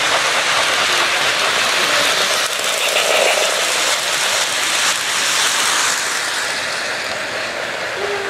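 Model electric trains running on the layout's track close by: a steady clattering whir of wheels on rails and geared motors, a little quieter in the last couple of seconds.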